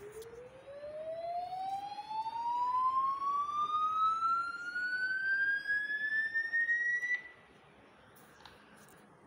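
A single electronic tone played through a phone's speaker, rising smoothly from a low to a high pitch for about seven seconds and then cutting off suddenly.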